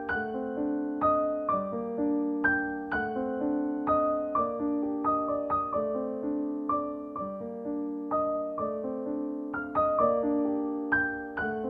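Background piano music: a gentle melody of struck notes over held chords, a new note every half second or so.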